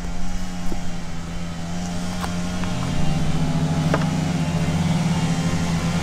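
Steady low droning hum of a mass of honeybees over the open hive, swelling about halfway through, with a few light clicks and knocks.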